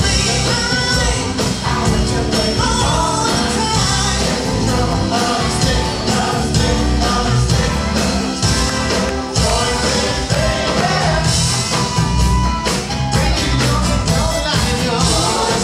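Live funk band playing, with several singers over a heavy bass line, drums and keyboards, loud and continuous.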